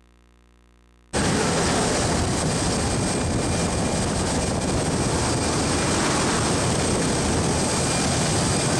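Near silence for about a second, then suddenly a loud, steady rush of wind and propeller-engine noise through the open door of a small jump plane in flight.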